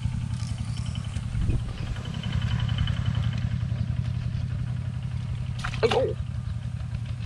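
A steady low rumble that carries on unchanged, with a short, wavering high-pitched sound about six seconds in.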